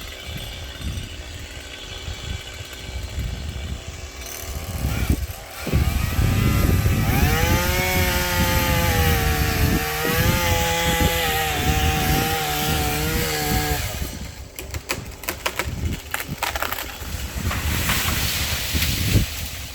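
Chainsaw cutting a sycamore branch: the engine revs up about six seconds in, holds at high speed for about six seconds, then stops. A run of sharp cracks and snaps follows.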